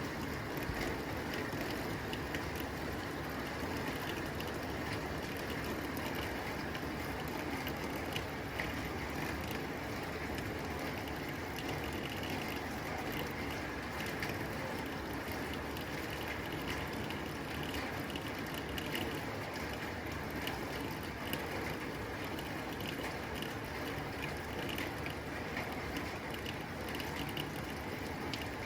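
Steady rain falling on a tin roof: an even hiss of rain with many small, sharp drop impacts ticking on the metal.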